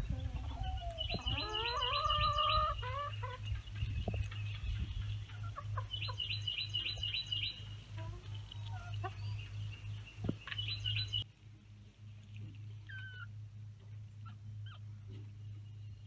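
Chickens clucking in a hen run, with one long rising call from a chicken starting about half a second in. A songbird repeats a quick run of high notes three times over them. About eleven seconds in the sound cuts to a much quieter stretch with a few faint chirps.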